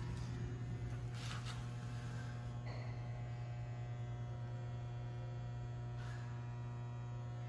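Steady low electrical hum at mains frequency, with a couple of faint brief rustles.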